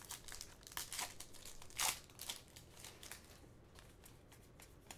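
Hockey trading cards being flipped through by hand, with short rustles and crinkles of cards and foil pack wrappers; the loudest comes just under two seconds in, and the rustling thins out in the second half.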